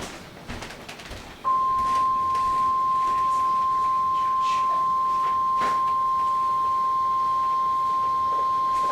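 NOAA Weather Radio warning alarm tone: a single steady 1050 Hz beep that starts about a second and a half in and holds at an even level, signalling that a new warning is about to be broadcast.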